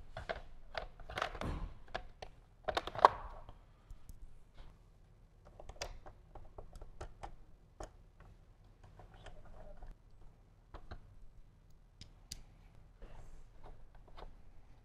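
Handling knocks and clatters as a fresh air vent is fitted into a motorcycle fairing, the loudest a sharp knock about three seconds in. These are followed by a run of faint clicks and ticks as a T27 screwdriver drives in the vent's bolts.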